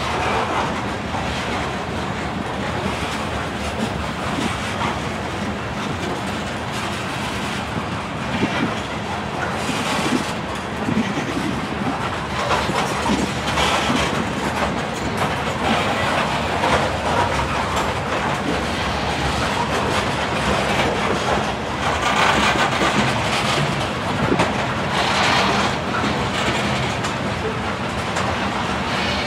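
Covered hopper cars of a freight grain train rolling past close by: steady wheel-on-rail noise with clickety-clack over the rail joints, swelling brighter a few times, most of all about two-thirds of the way through.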